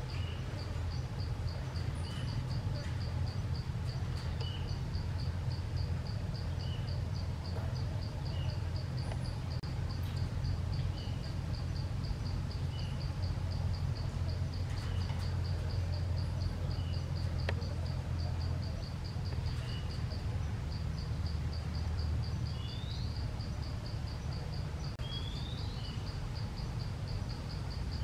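Forest insects calling: a steady, high, pulsed trill repeating about three times a second, with short chirps every couple of seconds and a few quick rising chirps near the end. A low steady rumble runs underneath.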